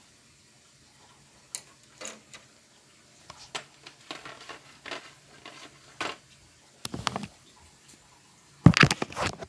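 Paintbrushes and their plastic packaging being handled: scattered light clicks and taps that get busier, ending in a louder clatter of knocks near the end.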